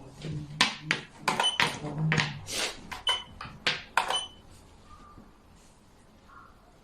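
Xiangqi pieces clacking onto the board: a quick run of about a dozen sharp clacks, some with a brief ring, stopping about four seconds in.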